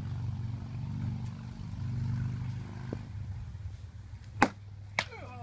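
Two sharp strikes about half a second apart, near the end: weapon blows between armoured fighters in a tournament bout. Under them runs a steady low hum like an idling engine, which fades after about three seconds.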